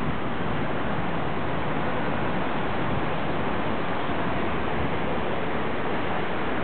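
Steady, even rushing noise of a thunderstorm at the seashore, surf and rain blended into one sound.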